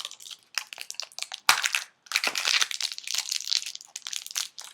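Crinkling of plastic candy wrappers and packaging being handled, with irregular crackles and sharp clicks, the loudest about one and a half seconds in.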